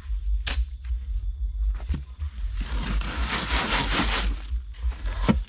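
Sharp knocks, one about half a second in and another near the end, with about two seconds of rough scraping between them, over a steady low rumble.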